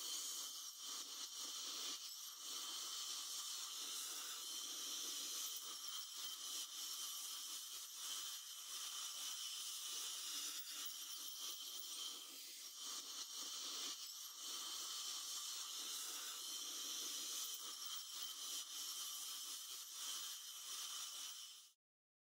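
NSK VARIOS ultrasonic scaler with a G8 tip running while scaling calculus off teeth: a faint, steady high hiss with a thin high whine. It cuts off near the end.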